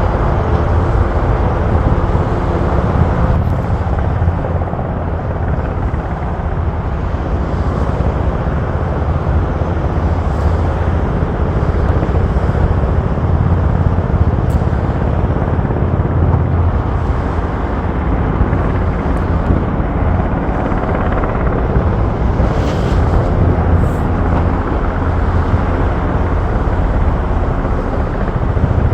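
KUH-1 Surion firefighting helicopter in flight, its rotor and engines making a steady, loud low drone.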